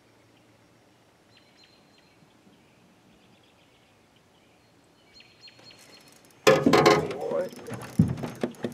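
Faint ticking of a spinning reel, then about six and a half seconds in a sudden loud clatter and rustle of an angler standing and swinging the rod to set the hook in an aluminium jon boat, with knocks against the hull going on after.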